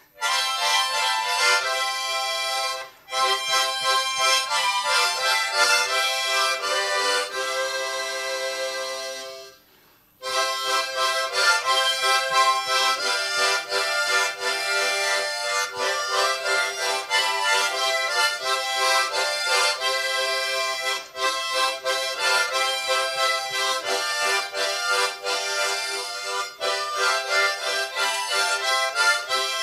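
Harmonica ensemble of several players playing a tune together in chords, with no bass underneath. The playing breaks briefly about three seconds in, ends a phrase on a long held chord, pauses for about a second near ten seconds in, then carries on.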